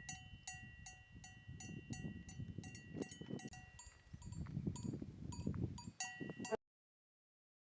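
Cowbells on grazing cows clanking faintly and irregularly, a few strokes a second, each leaving a ringing tone. The sound stops suddenly about six and a half seconds in.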